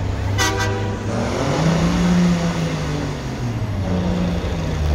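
Semi truck's diesel engine running hard under load while pulling a weight sled, its pitch rising and falling. A short horn blast sounds about half a second in.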